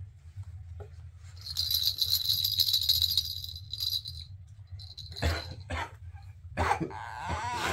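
A baby's plastic toy rattle shaken for about three seconds, a fast, bright jingling rattle that starts about a second and a half in. Short voice sounds follow near the end, over a steady low hum.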